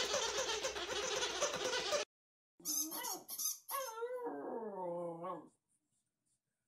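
A dense, noisy sound cuts off abruptly about two seconds in. Then a bulldog puppy tugging a toy gives a few short, sharp yips followed by one drawn-out whine that falls slowly in pitch.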